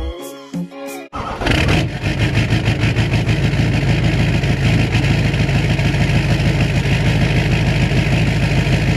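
Music for about the first second, then an LBZ Duramax 6.6-litre V8 turbodiesel with a 68 mm street turbo starts up and runs at a steady idle, heard from behind the truck at the exhaust.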